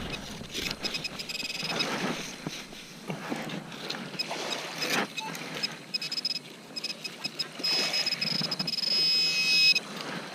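Minelab CTX 3030 metal detector giving high, steady target tones several times, then one held tone for about two seconds near the end, as it sits over a metal target. Around the tones, water sloshes and splashes as the target is dug out.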